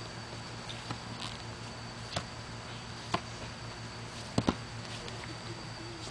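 Steady low hum with a thin high whine, broken by a few scattered sharp taps and knocks about a second apart, the loudest a quick double knock near the end.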